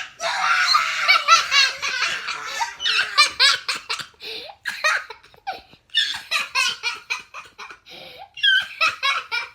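Children laughing in repeated fits of giggles, breaking off and starting again.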